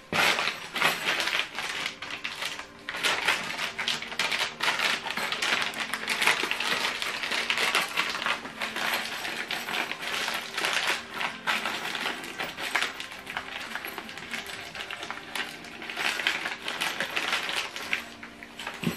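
Clear plastic bag of furniture hardware crinkling as it is torn open and handled, with small metal screws and fittings clinking inside. The crackle and clinks go on without a break.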